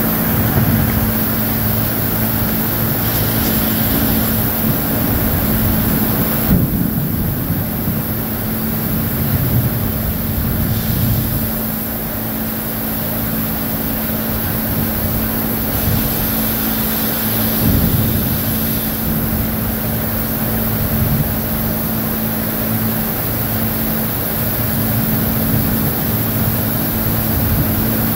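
Heavy thunderstorm rain with strong wind gusting against the microphone in irregular low surges. Underneath there is a steady low hum from an idling engine.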